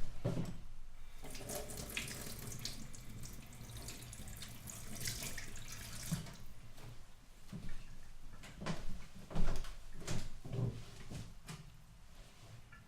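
Kitchen tap running into a sink for several seconds, then a series of sharp knocks and clatters, the loudest about nine seconds in.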